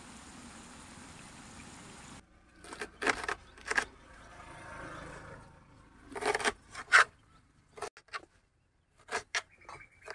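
Knife chopping fresh mint leaves on a flat metal plate: sharp knocks of the blade striking the metal, in short groups with pauses between them. Before that, a steady hiss of the tomato-and-onion biryani masala frying in a large aluminium pot cuts off abruptly about two seconds in.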